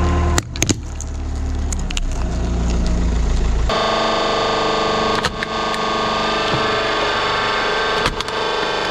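A truck engine runs with a low rumble, with a few sharp cracks just after the start. About four seconds in it gives way to a hydraulic press's steady motor hum, with sharp cracks now and then as the ram crushes stacked toy picture cubes.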